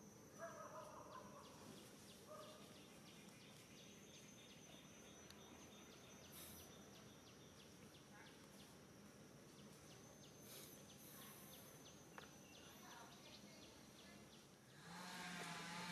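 Faint outdoor ambience: a steady high insect buzz with rapid ticking, and a few short animal calls in the first two or three seconds.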